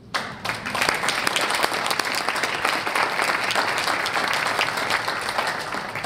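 Audience applauding, a dense patter of many hands clapping that begins at once and holds steady, starting to die away near the end.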